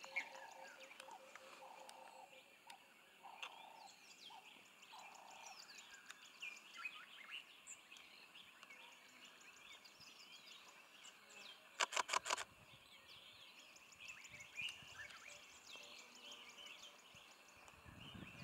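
Faint, scattered bird chirps over a quiet outdoor background. About twelve seconds in comes a quick run of about six loud clicks.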